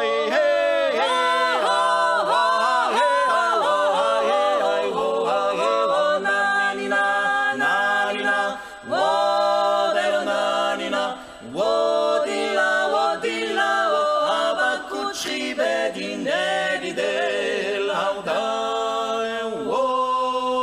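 A cappella trio of two women and a man singing Georgian polyphony, the upper voices moving over a steadily held low note. The phrases break off briefly a few times for breath, and the song ends on a long held chord.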